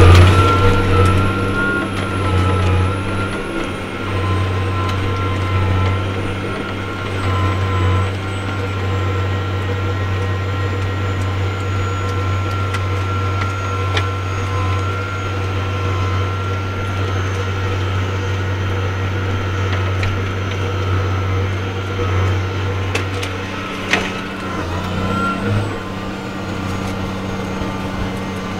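Case IH MX285 tractor's six-cylinder turbo-diesel engine running steadily under load, pulling a land leveller. A high whine slowly falls in pitch, and there are a few sharp clicks.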